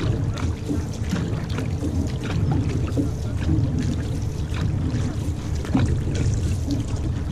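Outrigger canoe moving under paddle: water washing and splashing along the hull close by, with irregular small splashes and drips as the paddles dip and lift, over a steady low rumble.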